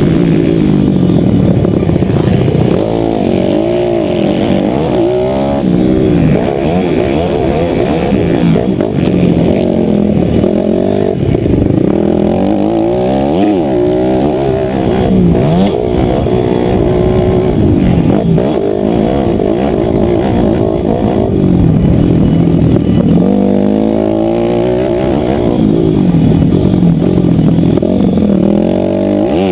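Motocross bike engine heard onboard at race pace, its pitch rising and falling every second or two as the rider revs up, shifts and backs off.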